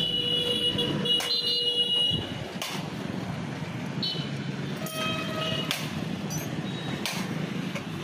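Street traffic with vehicle horns tooting twice, a longer toot in the first two seconds and a shorter one around the middle. Scattered sharp knocks of hand tools on a scooter being repaired are heard between them.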